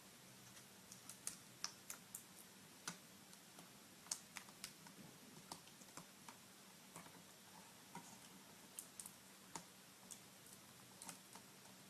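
Faint, irregular small clicks and taps of hands and fingers handling a laptop LCD panel and its display cable while plugging the cable connector back into the new screen, with a faint low hum underneath.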